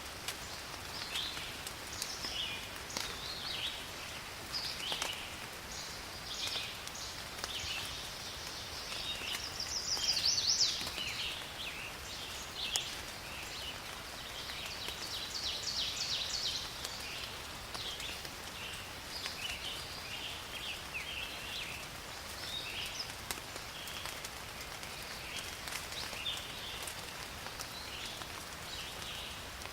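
Steady rain in a forest, with many short, high chirping animal calls throughout. A louder call comes about ten seconds in, and a quick trill about sixteen seconds in.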